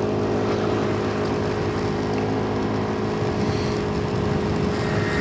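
Motorcycle engine running steadily while riding, an even hum with road noise.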